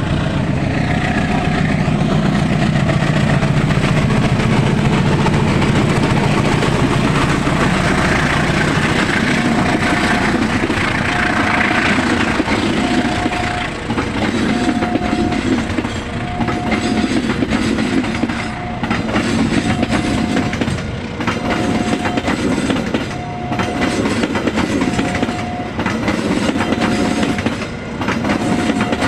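Diesel-hauled passenger train passing: the locomotive's engine drone at first, then the coaches' wheels clattering over the rail joints in a steady rhythm. A short high tone repeats about once a second through most of it.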